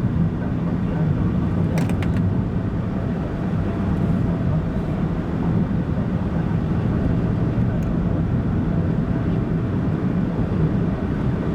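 Car driving at steady speed, heard from inside the cabin: a steady low engine and road rumble with tyre noise, and a few faint clicks about two seconds in.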